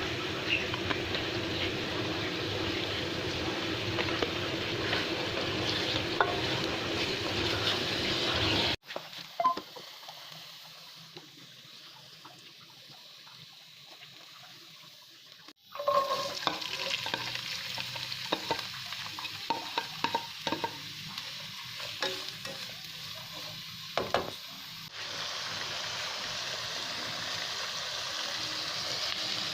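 Food frying and sizzling in a pan, with a spoon stirring and knocking against it. The steady sizzle cuts off suddenly about nine seconds in, giving way to quieter clinks and knocks for a while before the sizzling returns.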